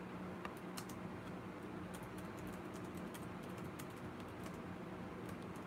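Faint, irregular clicking of typing on a keyboard, over a steady low electrical hum.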